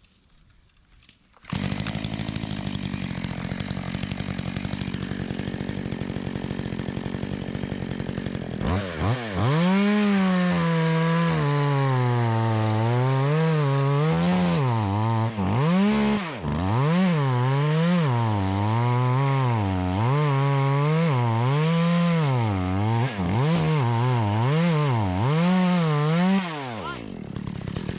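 Two-stroke chainsaw comes in suddenly about a second and a half in and runs at a steady idle. From about eight seconds in it runs at high speed, its engine pitch dipping and rising over and over, about every second and a half, as the chain works through a tree during thinning. Near the end it drops back to a lower, steady running.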